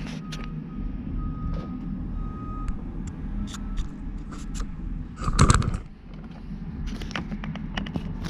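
Scattered metal clicks and clinks of tools and lathe carriage parts being handled, with one louder clatter about five seconds in, over a steady low shop hum.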